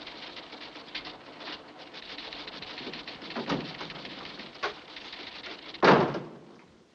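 Office typewriters clacking irregularly over a steady hiss, with one louder short thump about six seconds in.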